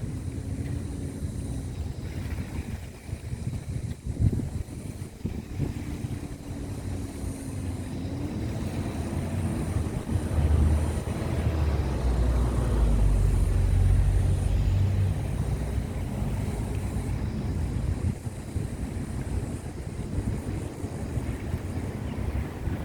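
Low rumble of a large ship's engines passing offshore, swelling about halfway through, with a faint steady hum that rises slightly in pitch about eight seconds in.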